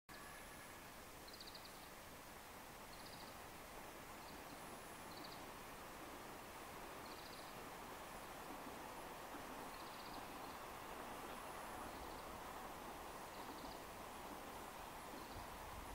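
A small bird's short, high, buzzy call repeating every one to two seconds over a faint outdoor hum that grows slightly louder.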